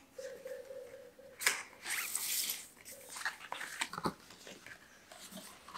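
The cardboard box of an Apple Watch Series 5 being opened by hand: a sharp click about a second and a half in, a brief papery rip just after as the tear strip comes away, then light taps and rustles of the packaging. A faint steady tone sounds during the first second or so.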